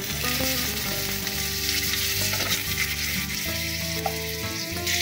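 Peeled potato halves sizzling in hot turmeric-tinged oil in a nonstick wok: a steady frying hiss that starts suddenly as the first pieces hit the oil.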